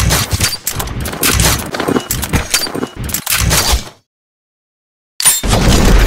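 Gun-assembly sound effects: a rapid, loud series of metallic clicks and clacks as pistol parts snap together, stopping abruptly after about four seconds. After a second of silence, a loud whoosh with a deep boom bursts in near the end.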